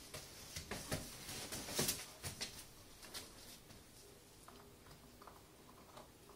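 Springer spaniel puppy scrambling onto a leatherette dog bed beside a stuffed toy: a quick run of scuffs, rustles and claw clicks, loudest about two seconds in, then only faint rustling.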